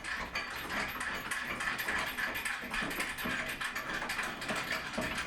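A ratchet clicking rapidly and continuously, as bolts on a wooden floor loom are worked loose.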